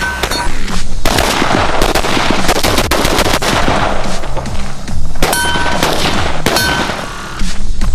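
Rapid gunfire from a real firearm, in quick runs of shots, mixed with background music.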